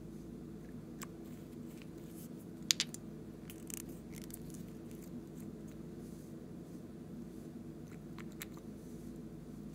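Small plastic glitter bottles being handled and their caps twisted open: scattered sharp clicks and taps, the loudest a double click just under three seconds in. A steady low hum runs underneath.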